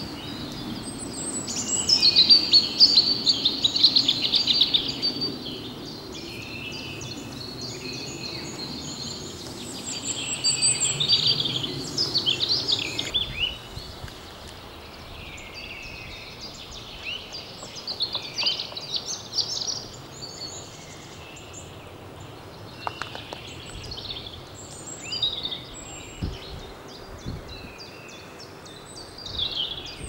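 Small birds singing and chirping, many short varied trills and calls, loudest in the first few seconds and again around ten to thirteen seconds in. A low steady rumble runs underneath and cuts off suddenly about thirteen seconds in.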